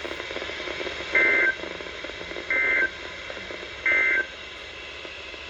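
EAS end-of-message data bursts: three short, shrill warbling bursts of SAME digital tones about a second and a half apart, over faint broadcast hiss. They mark the end of the warning message.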